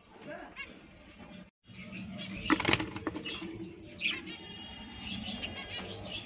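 Handling noise at a wooden lovebird nest box: rustling and a few sharp knocks about two and a half seconds in, with lovebirds chirping faintly later on.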